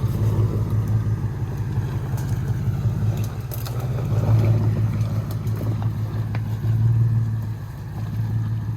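Off-road vehicle engine running low and steady, with its rumble swelling a few times as the throttle changes.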